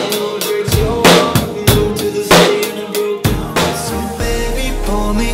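Drum kit playing within a band mix: heavy kick and snare hits with cymbal crashes, each strike standing out. About four seconds in, a sustained deep bass note comes in and the music settles into a steadier, fuller groove.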